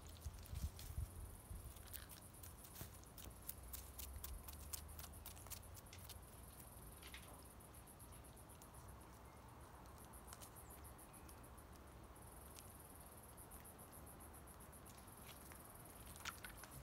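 Faint, high insect chirring with a fast, even pulse, which drops away for a few seconds midway. Over the first several seconds there is a scattered run of light clicks and taps.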